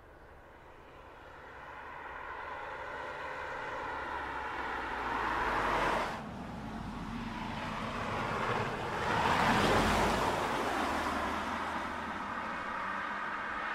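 A 2015 Mazda 6 wagon driving past on a winding road, its engine note and tyre noise building as it approaches. The sound cuts off sharply about six seconds in, then a second pass swells to its loudest around ten seconds in and eases away near the end.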